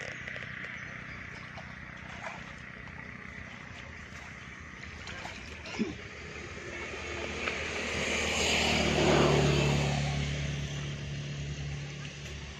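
Steady low engine hum that swells to its loudest about nine seconds in and then eases off, like a motor passing by.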